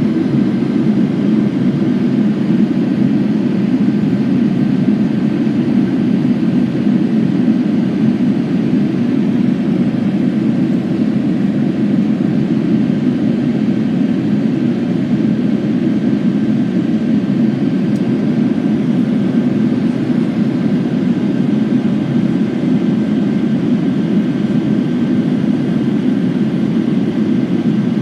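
Steady in-flight noise of a Boeing 787-9 Dreamliner airliner during its descent from cruising altitude: an unchanging low rush of engines and airflow, with a faint steady high tone above it.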